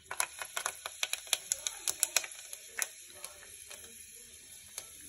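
Fenugreek seeds crackling in hot oil in a pressure cooker: a quick run of sharp pops over the first two seconds, thinning to a few scattered ones, over a faint sizzle.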